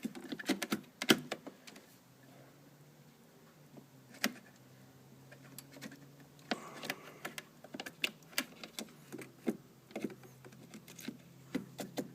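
Irregular plastic clicks and taps as a DDR3 memory stick is handled and pressed into its motherboard slot, with a few sharper clicks. A faint steady low hum sits underneath.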